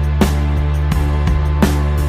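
Background music with a steady beat: a strong hit roughly every three quarters of a second over held low bass notes.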